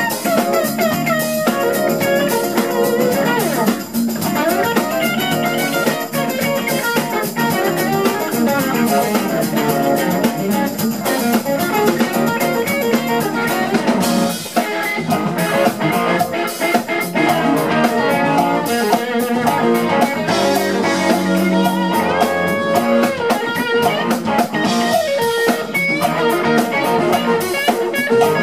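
Live instrumental funk from a full band: electric guitar playing with bent notes over drums, bass and keyboards. The drummer's cymbals get busier about halfway through.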